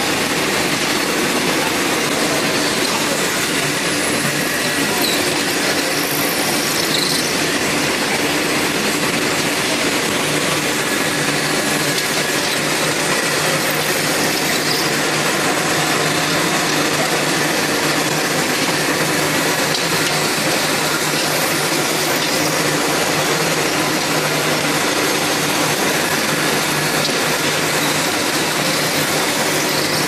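Automated padlock production-line machinery running with a steady, dense mechanical noise that holds at an even level throughout.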